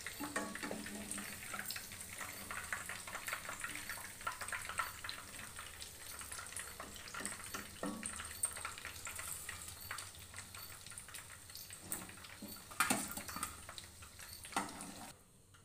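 Chicken pakoda pieces deep-frying in hot oil in a kadai: steady sizzling and crackling of the oil as the fried pieces are lifted out. A couple of louder knocks from the slotted spoon and spatula against the pan come near the end, and the sizzling cuts off just before the end.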